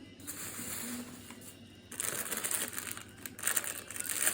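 Plastic snack packets crinkling and rustling as they are handled, a dense crackle that grows louder about halfway through.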